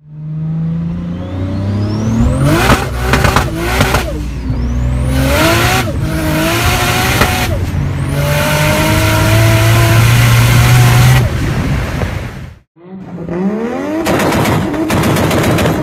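2JZ straight-six in a swapped Nissan, heard inside the cabin, pulling hard through several gears: its note climbs and drops off sharply at each upshift. After a brief gap, an engine revs up and breaks into a rapid run of sharp pops and bangs from the exhaust.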